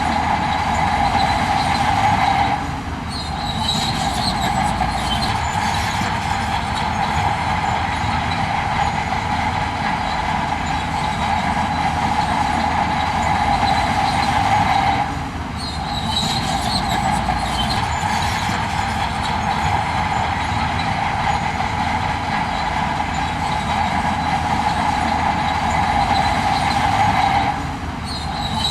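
Heavy earthmoving machinery running steadily, a continuous mechanical din with a strong mid-pitched whine. The sound drops away briefly twice, about a third of the way in and again near the end.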